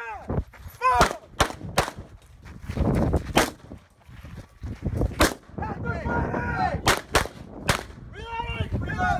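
Handgun shots on an outdoor range: a quick cluster of three or four shots about a second in, then single shots and a quick pair spread through the rest.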